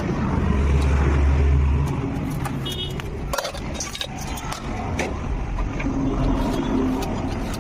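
A motor vehicle engine running close by, loudest in the first two seconds, with scattered metallic clinks and knocks.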